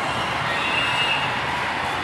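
Steady background din of a large indoor volleyball hall with many courts: crowd chatter and play from the surrounding courts blend into a constant wash of noise, with a faint high tone for about half a second near the middle.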